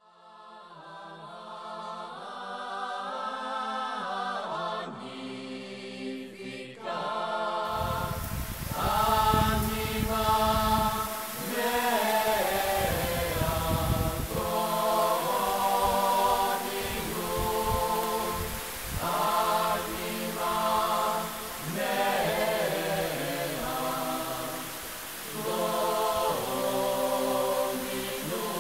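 Unaccompanied choral chanting: several voices on held, shifting notes over a steady low drone. From about eight seconds in, a hiss and a low rumble come in under the singing.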